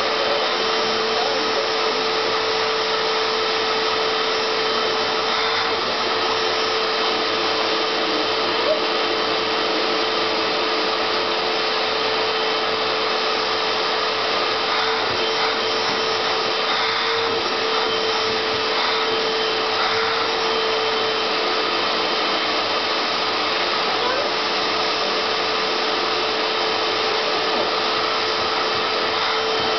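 Vacuum cleaner running steadily: an even, loud rush of suction with a constant motor hum.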